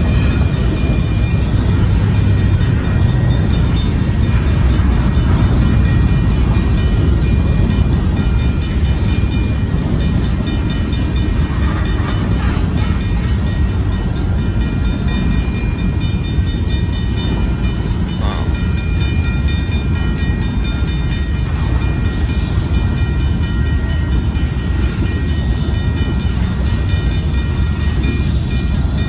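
Freight train of covered hopper cars rolling steadily past, a continuous low rumble of wheels on rail. A grade-crossing warning bell keeps ringing over it.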